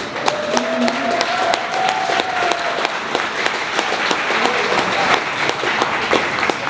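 Spectators clapping: a dense patter of hand claps with some sharp single claps standing out.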